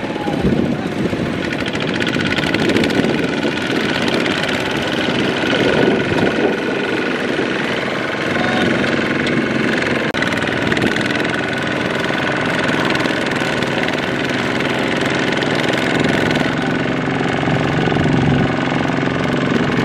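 Kubota RT140 power tiller's single-cylinder diesel engine running steadily as the tiller pulls a loaded rice trailer through sticky mud.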